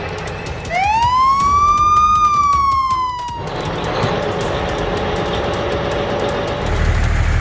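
A siren sounds one wail, starting about a second in, rising and then slowly falling in pitch for about three seconds, over a steady rumble that grows heavier near the end.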